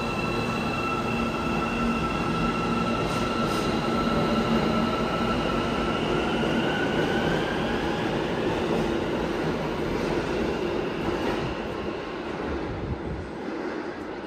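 Metro train pulling out of an underground station: a rumble of wheels and cars with a whine that rises in pitch as it picks up speed. It fades near the end as the last car clears the platform.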